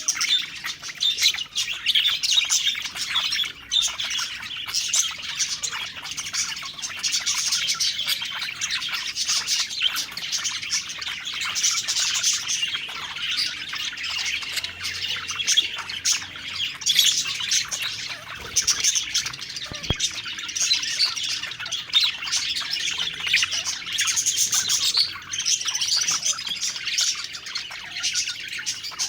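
A group of budgerigars chattering and warbling without a break, a dense mix of quick chirps, whistles and harsher squawks.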